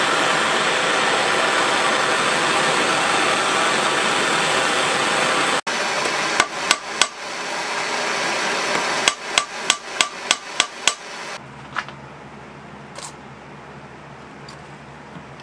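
A steady rushing noise that stops abruptly, then hammer strikes on a metal tool: a few single blows, then a run of about seven quick, even taps, then a few faint ticks.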